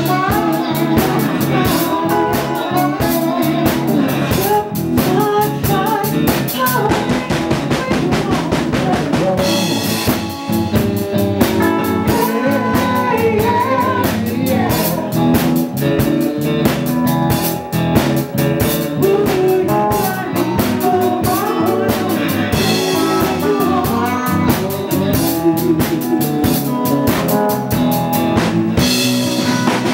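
Live blues band playing: electric guitar over a steadily beating drum kit, with singing.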